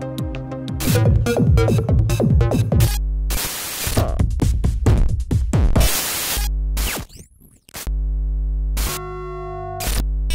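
Live-coded electronic music in quick chopped fragments: synthesizer tones over deep sustained bass and drum-machine hits, broken up again and again by short bursts of static hiss. The music drops out briefly about seven seconds in.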